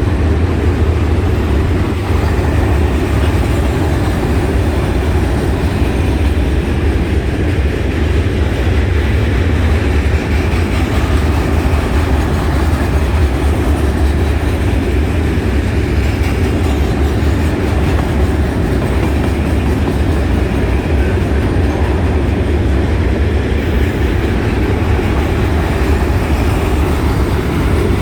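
RJ Corman freight train rolling past, a steady low rumble of cars on the rails with faint clickety-clack of wheels over rail joints.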